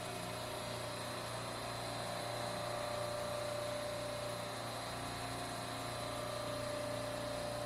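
Semi-hermetic refrigeration rack compressors running: a steady mechanical hum with a constant mid-pitched tone and a faint high whine.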